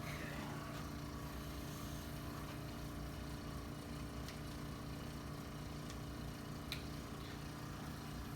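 Steady low mechanical hum, with two faint sharp clicks about four and seven seconds in.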